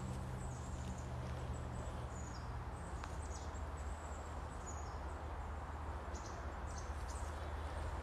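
Short, high bird chirps scattered over a steady low rumble of wind noise, with soft footsteps along a sandy pine-forest trail.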